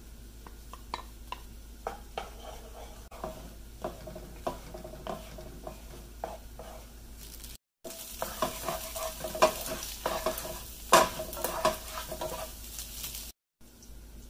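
Eggs frying and sizzling in hot oil in a nonstick pan while a spatula stirs and scrapes them into scrambled eggs. The strokes are sparse at first, then come thicker and louder after a brief break.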